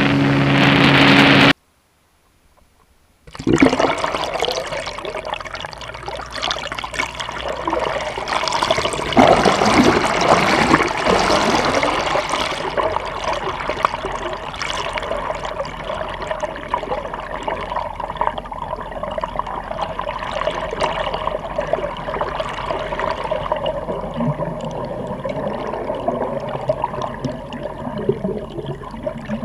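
A boat engine runs briefly and cuts off abruptly, then after a moment of silence comes a steady rushing, bubbling wash of water heard from under the surface by a submerged camera, loudest early on and easing off, with a faint steady hum beneath it.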